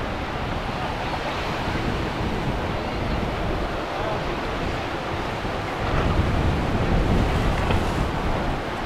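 Ocean waves washing and breaking, with wind buffeting the microphone; the low wind rumble grows stronger from about six seconds in.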